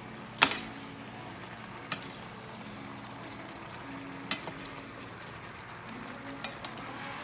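Shrimp, onion and bell peppers sizzling in garlic butter in a stainless steel skillet, a steady hiss, while a metal utensil stirs them and clinks sharply against the pan several times. The loudest clink comes about half a second in.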